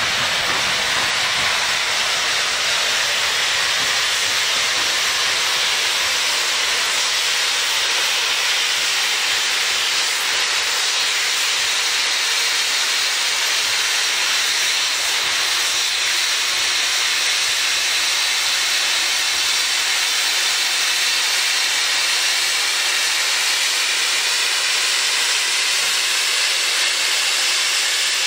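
Steam hissing steadily and loudly from a standing SAR NGG16 narrow-gauge Garratt steam locomotive, with no exhaust beat.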